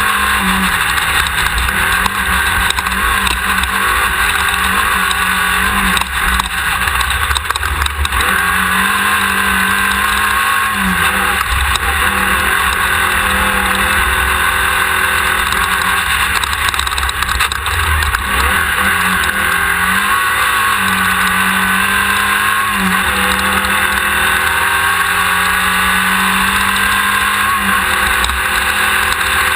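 1600-class desert race buggy's engine running hard at speed, its pitch dipping briefly several times and climbing back, over a constant rattling rush of noise.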